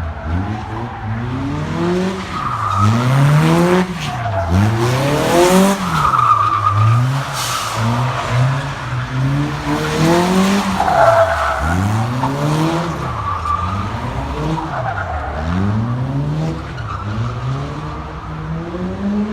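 A car engine revving up and dropping back over and over, roughly once every second or so, with bursts of tyre squeal: a car being driven hard.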